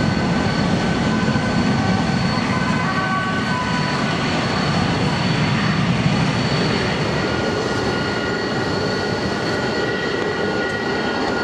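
Avro RJ85 taxiing on its four turbofan engines at low thrust: a steady loud jet rumble with several high, even whining tones over it.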